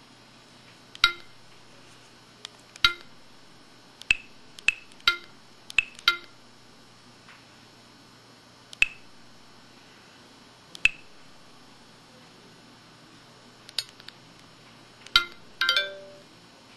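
Samsung SPH-X7800 mobile phone playing its built-in effect tones one after another: about a dozen short, bell-like pings and chimes at uneven intervals, with a quick cluster of several near the end.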